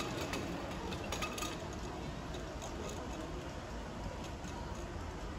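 Ride-on miniature train running along its track: a low rumble with faint light clicks from the wheels in the first second or so, fading as it moves off.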